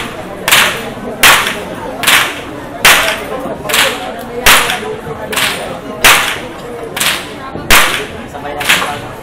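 A bullwhip cracked over and over in a steady rhythm: about eleven sharp cracks, a little under a second apart, over the low murmur of a crowd.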